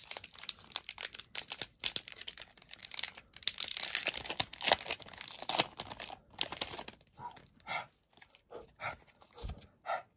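Foil wrapper of a Pokémon trading-card booster pack being torn open and crinkled by hand: dense crinkling and tearing for about seven seconds, then thinning out to a few short, quieter rustles.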